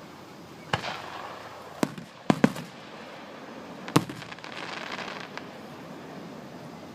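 Fireworks going off: five sharp bangs at uneven intervals, two of them in quick succession, followed by about a second of crackling.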